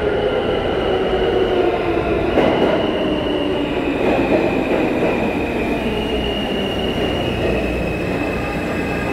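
Subway train noise in an underground station: a steady rumble with a high, thin wheel squeal running over it, which shifts slightly in pitch about six seconds in.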